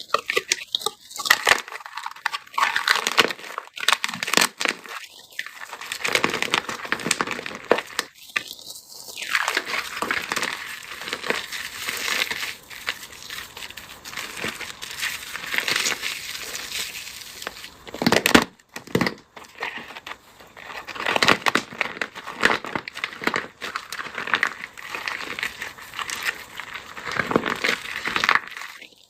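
Dry, brittle crafting material being crushed and crumbled: a dense, continuous crackling and crunching made of many small cracks, rising and falling in loudness, with a few brief pauses.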